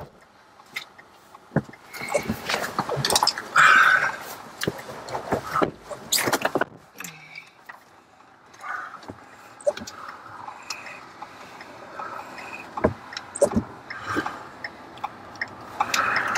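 Irregular clicks and knocks, as of things being handled inside a parked car, over a faint steady hiss; the loudest knock comes about four seconds in.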